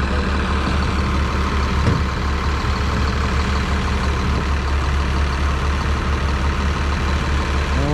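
Heavy engine idling steadily with a deep, even rumble, with a faint single knock about two seconds in.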